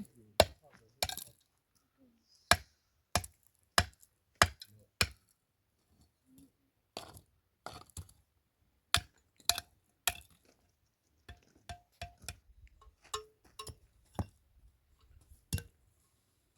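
A series of about twenty sharp, separate knocks at an uneven pace, some a fraction of a second apart and others with gaps of a second or two.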